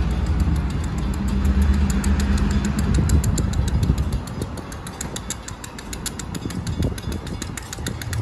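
Diesel locomotives of a freight train approaching slowly, engines running with a steady low drone that eases off about halfway through as they throttle down to arrive. A rapid, even high ticking runs through the second half.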